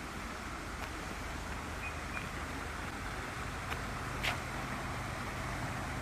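A road vehicle running, its low rumble growing louder from about halfway through, over a steady outdoor hiss with a few faint ticks.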